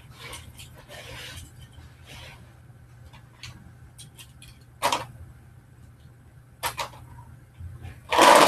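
Die-cast Monster Jam toy trucks (Max D and Son-uva Digger) handled and set on a race ramp with a few sharp clicks, then released near the end and rolling down the ramp with a loud rattling rumble.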